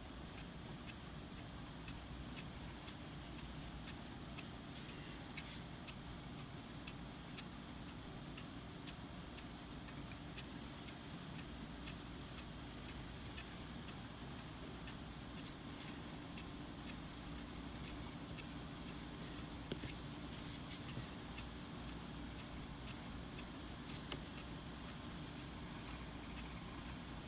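Colored pencils scratching on coloring-book paper as steady soft strokes, with scattered light ticks throughout and a low steady hum underneath.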